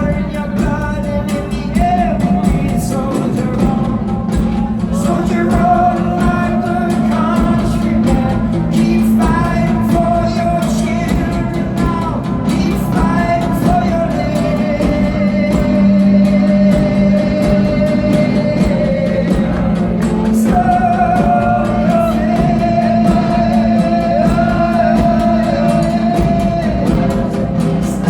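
Live band music with long, wordless sung notes held over guitar and a steady low drone.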